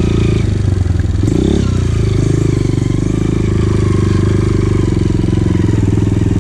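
Dirt bike engine running under way on a trail, easing off briefly and revving back up about a second and a half in, then pulling steadily.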